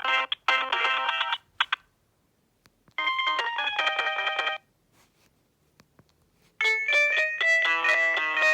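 Alcatel OT-E158 mobile phone playing its original ringtones, synthesized electronic melodies. One tune cuts off about a second and a half in, a short tune plays around the middle, and a new tune starts about two seconds before the end, with brief silences between them.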